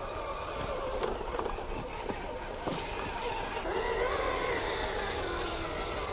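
Fayee FY004A 6x6 RC truck driving over dry leaves: the whine of its electric motor and gearbox rises in pitch and gets a little louder about two-thirds of the way through as the truck speeds past, with a few crackles of tyres on leaves.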